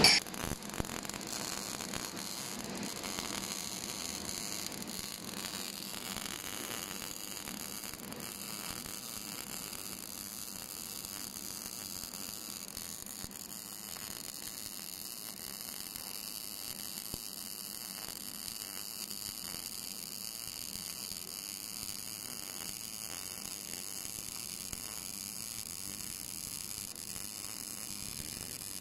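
MIG welding arc burning steadily as the torch runs a bead on a metal plate: a continuous, even crackle.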